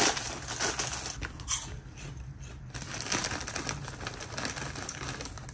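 Crinkly plastic snack bag rustling and crackling as it is gripped and pulled open by hand.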